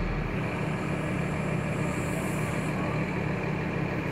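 The engine of a truck-mounted crane running steadily, a low, even hum.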